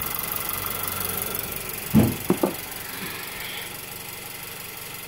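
Three taps on the ignition coil pack of an idling Honda Earth Dreams four-cylinder engine, about two seconds in: one heavier knock, then two quick, sharp, lighter ones. The steady idle runs underneath.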